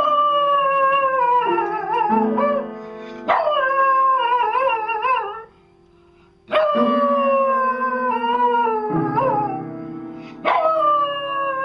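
A dog howling along with piano notes: four long howls, each sliding down in pitch, each beginning as keys are struck, with low notes ringing beneath. A brief pause about halfway through.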